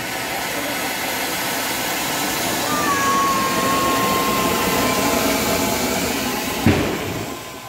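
Tubri (firework fountain) spraying sparks with a loud, steady hiss that swells a little in the middle. There is one sharp crack near the end.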